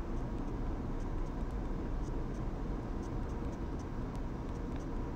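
Steady low rumbling background noise with a few faint ticks.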